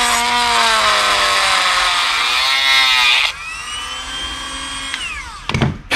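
Cordless Dremel-style rotary tool grinding a small oil groove into the metal head of a grease gun, its motor whine dipping and wavering in pitch under load. About three seconds in the grinding stops and the tool whines more quietly at a higher pitch, then winds down around five seconds, followed by a sharp knock near the end.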